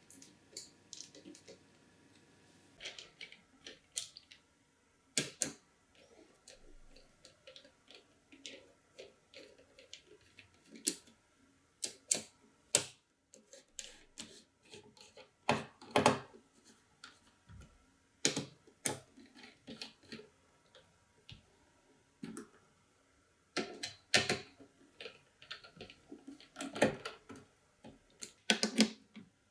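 Irregular clicks, taps and knocks of small hardware being handled during an M.2 SSD's installation on a PC motherboard, with sharper knocks now and then, among them a cluster near the end.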